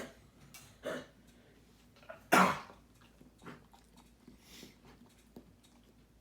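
A dog coughing in a few short bursts, the loudest about two and a half seconds in. The owner is unsure whether it is kennel cough or a side effect of heartworm treatment.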